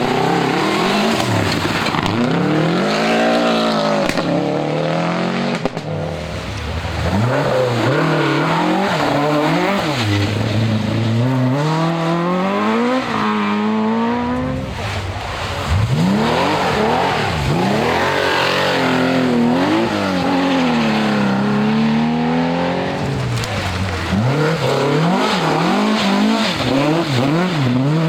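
Historic rally car engines revving hard, their pitch climbing and dropping again and again as the cars accelerate, change gear and lift off.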